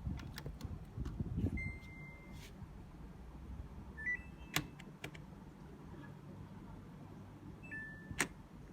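Samsung two-in-one washing machine running with a low steady hum. Two sharp clicks and three short high beeps sound over it.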